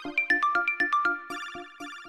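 Phone ringtone melody: a quick run of struck notes, about six a second, then held notes fading away near the end.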